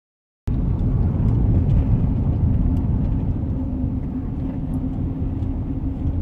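Steady low rumble of road and engine noise heard from inside a moving car's cabin. It cuts in suddenly about half a second in.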